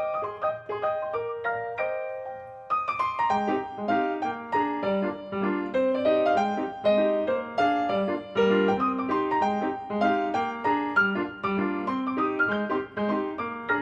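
Background piano music: a light melody in the upper register, joined about three seconds in by fuller lower notes.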